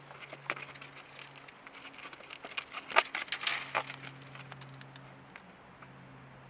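Bighorn sheep hooves clicking and scraping on rock as the animals step over boulders: scattered sharp clicks, with a flurry of louder knocks and scrabbling about three seconds in, the loudest a single hard knock, then thinning out.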